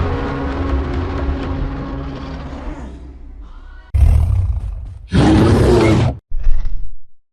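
Kong's giant-ape roar sound effect: a long, deep roar that fades out over about three seconds. It is followed by three shorter, abruptly cut roar clips about a second apart.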